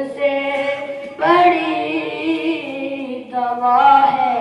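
A boy's high voice singing an Urdu naat unaccompanied, in long held melodic phrases, with short breaths between them about a second in and again past three seconds.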